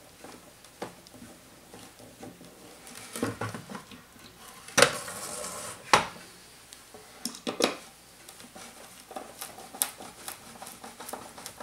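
Screws and hand tools being picked up and set down while the inverter is screwed in place: scattered metallic clicks and clinks, with two louder knocks about five and six seconds in and a short rattle between them.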